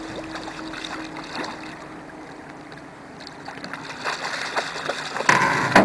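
Hooked Atlantic salmon thrashing and splashing at the surface beside the boat. The splashes build in the second half, with the loudest one just before the end.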